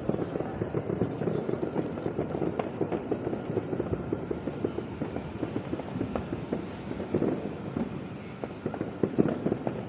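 Many fireworks and firecrackers going off at once, a continuous dense crackle of overlapping pops with a few louder bangs near the end.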